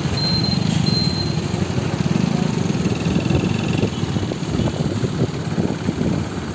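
Road traffic, led by a large truck's engine running close by as it passes. A high electronic beep repeats several times in about the first second and a half.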